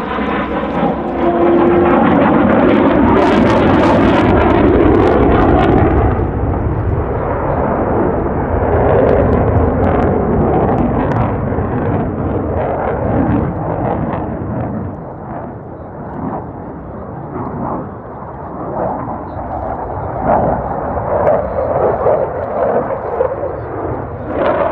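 Jet noise from a CF-18 Hornet's twin General Electric F404 turbofans as the fighter flies past, loudest with sharp crackles in the first few seconds, easing off in the middle, then swelling again near the end.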